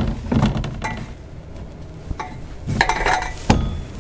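Metal clinks and knocks as a rear drive shaft is pulled and worked by hand to slide it out of the car, with the sharpest knock near the end.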